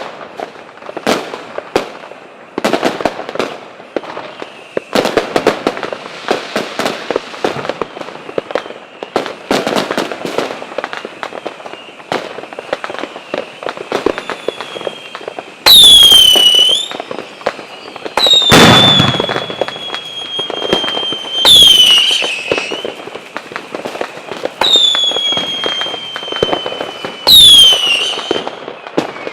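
Fireworks: a dense run of rapid crackling pops, then, about halfway in, several loud whistling fireworks, each a shrill whistle that sweeps down in pitch and then holds, with one deep bang among them.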